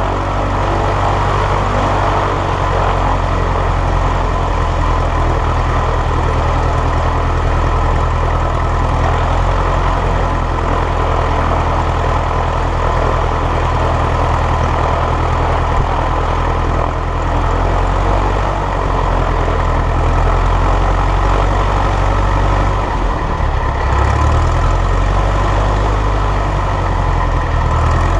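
Light aircraft's piston engine running at low power, close to the propeller, as the plane taxis over grass. The engine note holds steady, then wavers and shifts briefly near the end.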